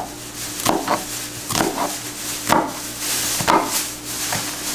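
Kitchen knife cutting through a peeled onion and striking a wooden cutting board, about one cut a second.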